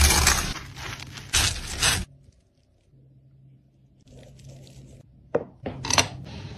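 A crumb-coated sushi roll sizzling in hot oil in a frying pan, with a few louder knocks as a fork turns it. The sizzle cuts off sharply about two seconds in. After that there is faint handling of a wooden serving board and chopsticks, with two sharp clicks near the end.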